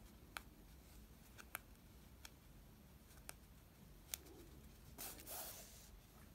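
Hand-sewing through layered fabric and batting with needle and thread: a few faint, scattered small clicks, then a brief rustle of fabric being handled about five seconds in.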